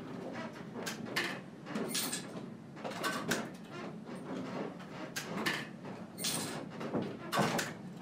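Machinery in the top of a windmill turning, knocking irregularly about once or twice a second over a steady low hum.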